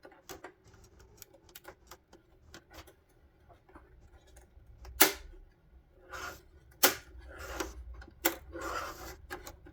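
Plastic headlight trim being worked loose by hand: small clicks and scraping, with two sharp snaps about five and seven seconds in as clipped-in chrome trim pieces pop free.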